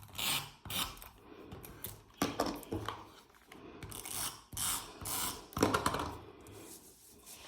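Paper strips being handled and stuck down on a scrapbook page: a series of short scraping, rustling bursts.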